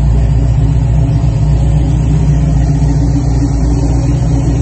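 Ford Performance Boss 347 crate V8 running steadily. It carries the knocking that the owner keeps pointing out; a speed shop found nothing under the valve covers and thinks the fault is internal.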